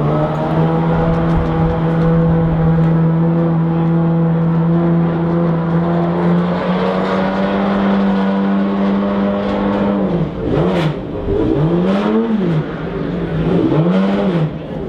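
McLaren F1 GTR race car's BMW V12 engine running at a steady raised idle, its pitch stepping up slightly about three seconds in. About ten seconds in it starts being blipped in quick revs, each rising and falling, about four or five in a row.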